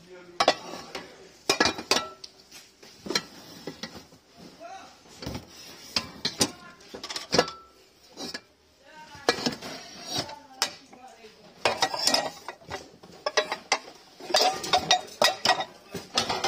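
Metal pots, pans and lids clattering and clinking as they are handled and shifted in a carton: irregular sharp knocks, some ringing briefly.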